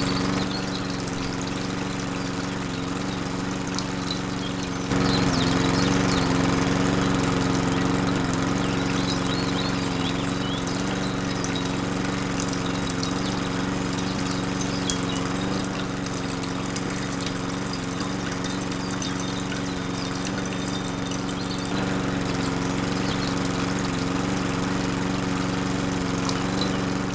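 Small electric motor humming at one steady pitch, with water pouring and trickling. The sound gets abruptly louder about five seconds in.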